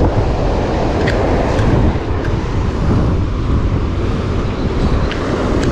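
Wind buffeting the microphone over the wash of surf: a steady low rush with a few faint ticks.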